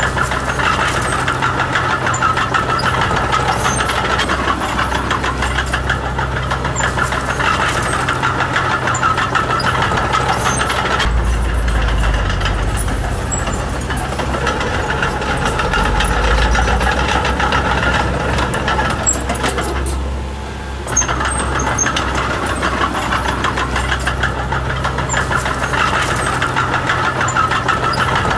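Diesel engine of a D20P mini bulldozer running steadily. A deeper low rumble swells for several seconds in the middle. Near two-thirds through the sound dips briefly and ends in a sharp clunk.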